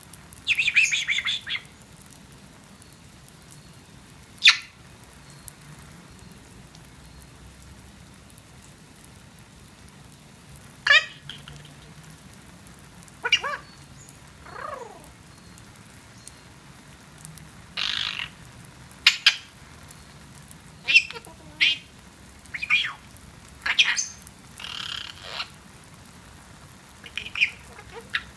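Eclectus parrot giving short, scattered squawks and chirpy chatter, about a dozen separate calls with one falling glide, coming more often in the second half. Under them runs the faint steady hiss of hose spray during the bird's shower.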